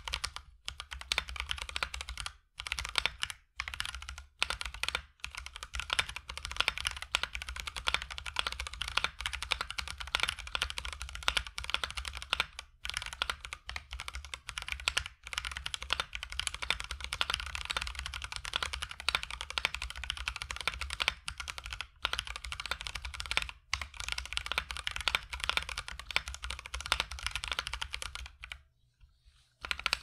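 Akko 3068B 65% mechanical keyboard, stock and unmodded, with Akko Jelly Purple tactile switches in a steel plate, being typed on quickly and continuously. It makes a dense run of keystroke clacks with a few brief pauses and a longer pause near the end, and sounds a little bit hollow.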